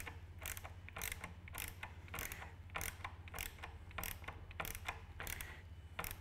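Hand Torx screwdriver turning thread-forming screws into the tripod leg's plastic end-cap component, giving short sharp clicks about three times a second as the handle is turned and re-gripped.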